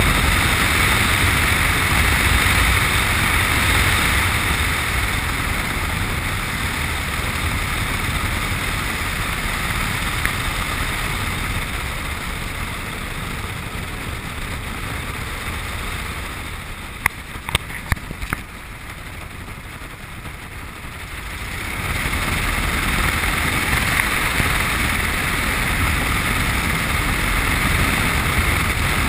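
Piper Cub's engine and wind noise heard from inside the cockpit, fading as the power comes back. About 17 seconds in there are a few sharp knocks, the wheels meeting the grass strip. About 22 seconds in the engine runs up again to full power.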